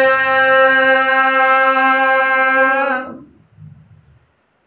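Unaccompanied Gojri bait singing: a man's voice, with hand cupped to ear, holds one long drawn-out note that bends slightly and fades out about three seconds in.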